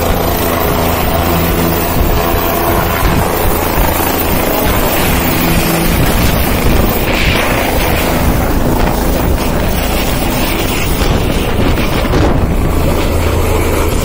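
Light helicopter's turbine engine and rotor running at high power as it lifts off and climbs away. Heavy wind buffeting on the microphone from the rotor downwash.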